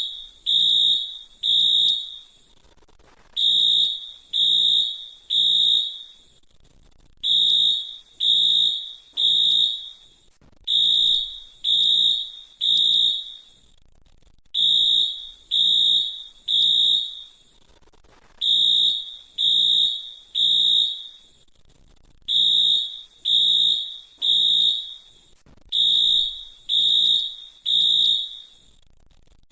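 Fire alarm sounding in the temporal-three pattern: groups of three loud, high, steady beeps, each group followed by a short pause, repeating about every four seconds. This is the standard evacuation signal of a fire or smoke alarm.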